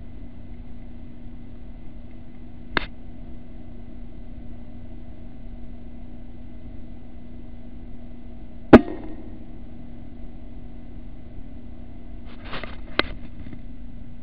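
Air rifle shot: one sharp crack about nine seconds in, the loudest sound, with a short ringing tail, over a steady low hum. A single smaller click comes earlier, and a few quick clicks come near the end.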